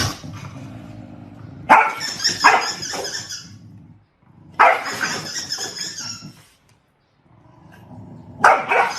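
A dog barking in three bouts, each a second or two long.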